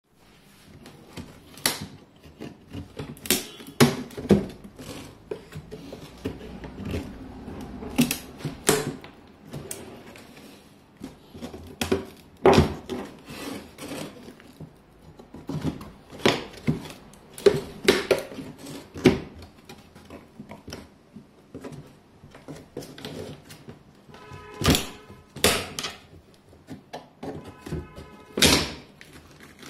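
Irregular knocks and clicks of a thin-slatted wooden fruit crate being pried open with pliers, with two short squeaks near the end as the wood gives.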